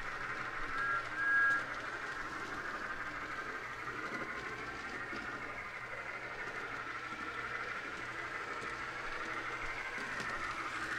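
HO-scale model locomotives running on track: a steady whir of small electric motors and wheels. About a second in there are two short, high tones.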